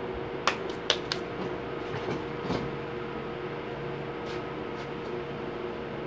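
A few sharp knocks and clicks in the first two and a half seconds, over a steady electric hum and hiss.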